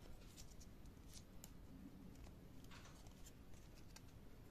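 Faint crinkling and rustling of folded paper origami modules being handled and slotted together, with a few soft ticks.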